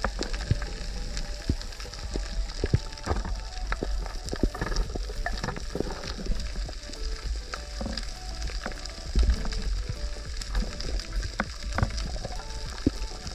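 Underwater crackle of a coral reef at night: dense, irregular clicking and popping, typical of snapping shrimp, over a low rumble of water.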